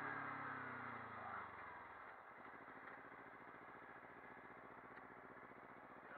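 Kawasaki Ninja 300 parallel-twin engine winding down as the motorcycle slows, its pitch falling over about two seconds, then running quietly at a steady idle.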